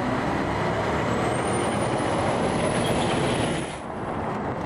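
Concrete mixer truck driving over a railroad crossing: steady engine and road rumble, with a thin high whine over it for a couple of seconds in the middle.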